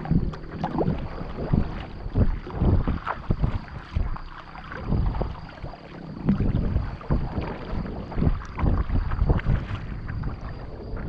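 Kayak paddle strokes: the blade dipping and splashing in the water in an uneven series of sudden low splashes, about one or two a second, over a steady wash of moving water.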